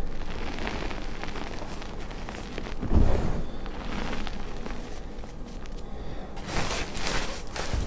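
Handfuls of crumbled, powdery gym chalk being scooped up and dropped back onto a chalk pile: soft crumbling and pattering of the powder, with a dull thump about three seconds in and crisper crunching near the end.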